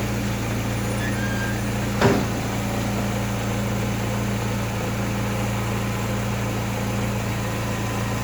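Car engine idling steadily with an even low hum. A single sharp click or knock comes about two seconds in.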